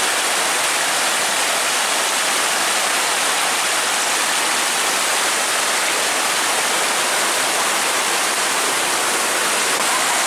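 Muddy floodwater rushing in a torrent down a flooded lane in heavy rain: a steady, unbroken rush of water.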